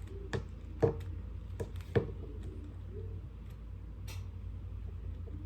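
Several sharp plastic clicks and taps from the electric hot-air rotating hair brush being handled and readied, over a low steady hum.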